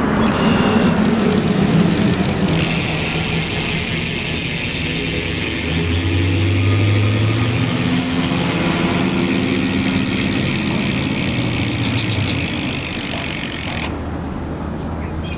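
BMX rear hub freewheeling as the wheel spins: the pawls click so fast they merge into a steady high buzz. It starts abruptly a few seconds in and stops sharply shortly before the end.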